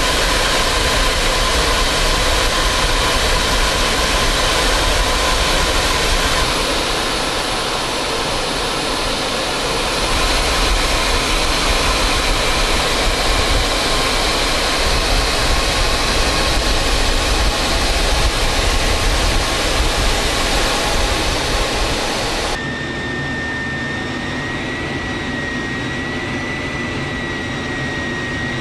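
Airbus A400M's four TP400 turboprop engines running steadily, a dense engine noise with a steady whine over it. About three-quarters of the way through the sound switches abruptly to a duller, slightly quieter engine noise with a clearer whine that rises slightly.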